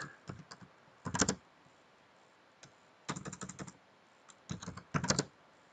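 Computer keyboard being typed on in a few short bursts of keystrokes, with pauses between the bursts.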